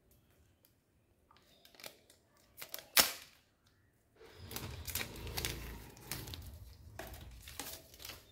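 Cardboard box and paper packaging being handled: light clicks and taps, one sharp click about three seconds in, then rustling and shuffling of the packaging.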